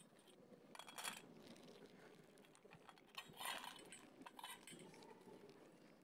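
Cats eating dry kibble, with faint clinks of kibble and teeth against a stainless steel bowl; the loudest clinks come about a second in and around three and a half seconds.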